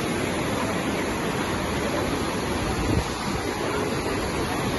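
Fast-flowing floodwater rushing past buildings: a steady, dense rush of water noise.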